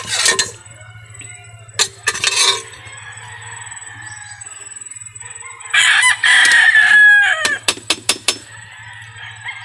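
A rooster crows once, about six seconds in, the loudest sound here. Faint chicken clucking sits underneath. Before the crow come a few short metal scrapes of a spatula in a steel wok, and a quick run of sharp clicks follows it.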